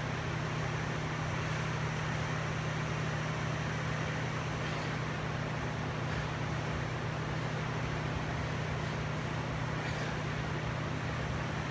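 Steady low hum with an even hiss over it, unchanging throughout: background ventilation or machine noise. No distinct impacts stand out.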